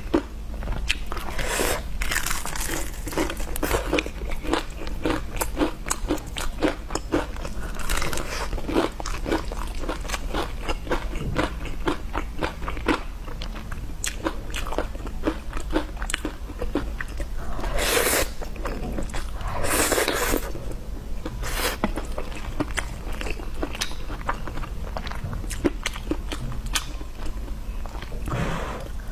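Close-miked eating: repeated crunchy bites and chewing, with dense crackly clicks and a few louder, longer crunches.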